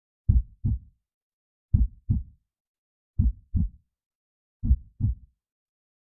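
Heartbeat sound effect: a slow, steady lub-dub, four double thumps about one and a half seconds apart, with dead silence between beats.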